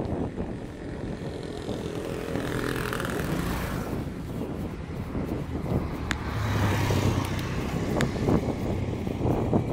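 Steady wind and road rumble on a chest-mounted phone microphone while riding a bicycle, with a motor scooter's engine running close by from a little past the middle, and a few sharp clicks.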